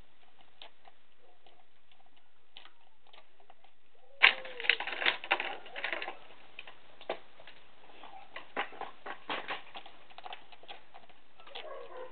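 A cat's claws scratching and clicking on rough tree bark as it clambers on the trunk. A dense burst of scratching comes about four seconds in, followed by scattered clicks.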